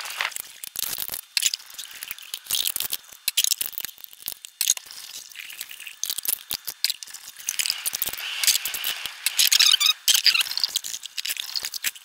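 Metal cans, plastic bottles and cartons clattering and clinking against each other and the sink as they are handled and rinsed for recycling, with a stretch of running water about eight seconds in.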